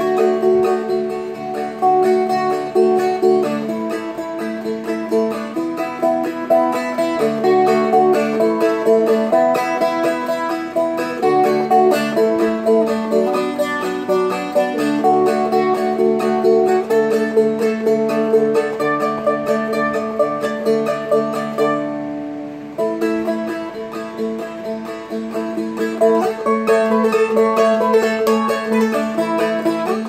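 Seagull Merlin M4, a four-string dulcimer-style instrument, flat-picked in a quick melody over a steady drone note, with a short break a little under three-quarters of the way through.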